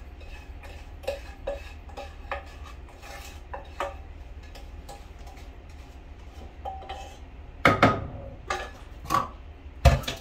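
Kitchen utensils and cookware clinking and tapping while a sauce is poured and scraped into a baking dish. Light taps run throughout, with a few louder clatters about three-quarters of the way in and at the end.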